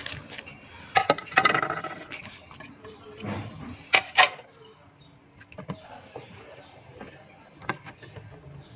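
Clinks and knocks of a ceramic plate and a metal ladle against a large aluminium cooking pot as garlic and green chillies are tipped into the boiling broth and stirred. The loudest are two sharp clacks about four seconds in.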